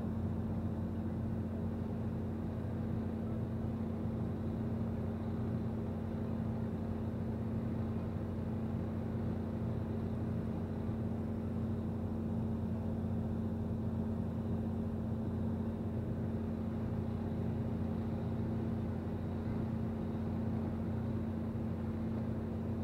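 Han River cruise boat's engine running steadily, heard on board as a constant low rumble with a steady hum.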